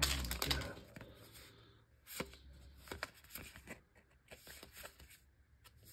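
Magic: The Gathering cards being flipped through by hand, each card slid off the stack with a soft snap and slide of card stock. A louder rustle at the very start, then scattered light clicks.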